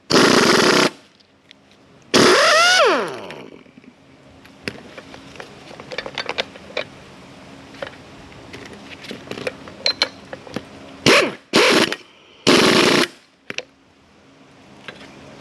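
Impact wrench running in short bursts on the strut's top mount nut, one burst ending in a falling whine as the motor winds down, with light metal clicks between bursts. The nut is hanging up on the edge of the strut rod's threads and won't come off.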